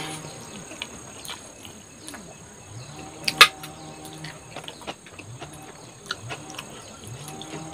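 Close-up eating sounds from hand-eating a meal: chewing and wet mouth clicks and smacks, with one sharp loud smack about three and a half seconds in. A steady high insect drone sounds underneath.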